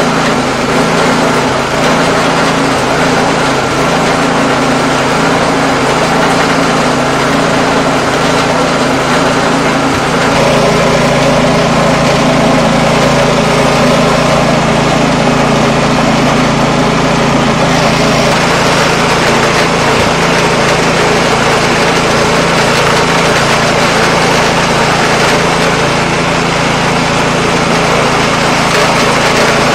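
Ruris Expert 540 snowblower's petrol engine running steadily at idle, being warmed up before an oil change.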